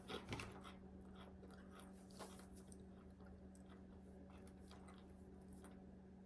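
Faint chewing of crunchy spicy fried green peas, with small irregular crunches, over a low steady hum.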